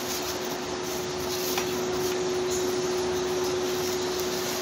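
Plastic bags rustling and crinkling as hands dig through them, over the steady hum of an induction cooktop heating a steel bowl.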